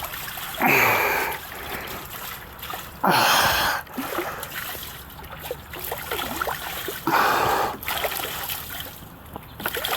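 Quench water around a hot railroad-rail anvil, with a garden hose running into the tub: a steady trickle of water with three louder splashing surges, about three seconds apart.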